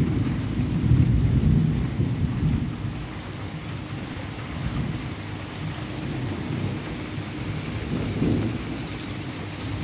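Thunder rumbling low and loud in the first two seconds or so, then dying away, over the steady hiss of heavy rain. A smaller swell of rumble comes about eight seconds in.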